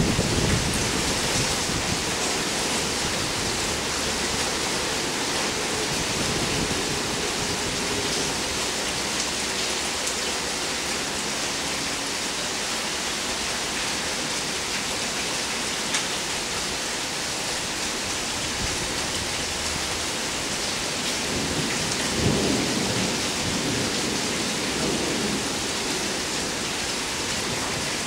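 Steady rain falling, with rolling rumbles of thunder, one in the first second and a stronger one about 21 seconds in.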